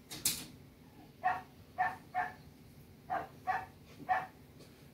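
Dog barking in the background, about six short barks spread unevenly through the second to fifth seconds, after a brief high rushing noise just after the start. The dog is excited by the new kitten.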